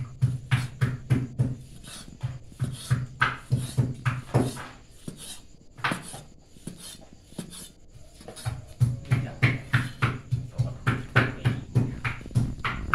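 Large kitchen knife chopping down through boiled buffalo meat onto a thick wooden chopping board, in a steady run of knocks at about three a second. The strokes thin out to a few scattered knocks in the middle, then pick up again at the same pace.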